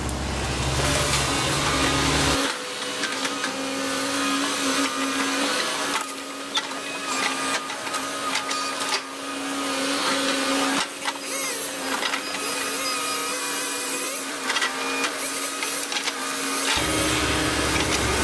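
Volvo ECR145EL excavator's engine and hydraulics running with a steady hum, over a busy crackling and snapping of wood and brush as trees are worked. The deep rumble drops out a couple of seconds in and comes back near the end.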